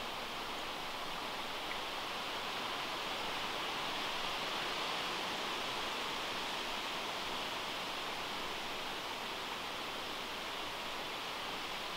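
Running stream water: a steady, even rushing hiss with no breaks.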